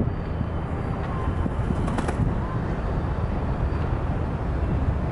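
Wind buffeting the microphone as a steady low rumble, with a couple of faint, brief chirps about a second and two and a half seconds in.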